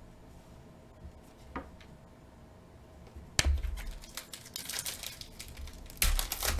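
Trading cards being handled: a sharp tap as cards are set down on a stack, then irregular clicking and rustling of cards in the hands, loudest near the end.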